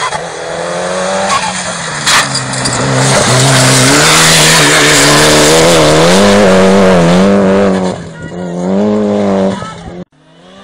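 Rally car driven hard on a gravel road, its engine note climbing and dropping through gear changes as it approaches. It slides past close by with a loud rush of spraying gravel for several seconds, then the engine fades away near the end.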